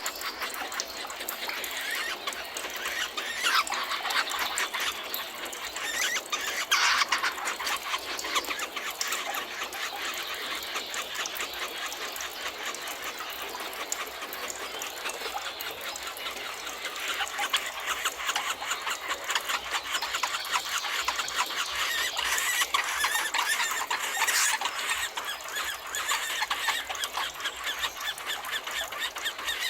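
Dense chorus of forest birds singing and calling, many high chirps overlapping without a break, with a few louder calls standing out about 4 and 7 seconds in.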